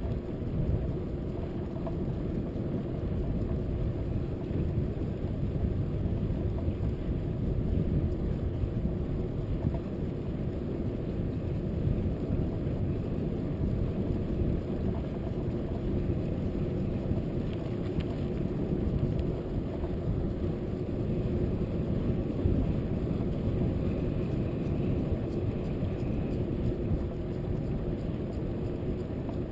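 Steady low rumble of wind buffeting the microphone of a bicycle-mounted camera while riding, mixed with tyre noise on asphalt.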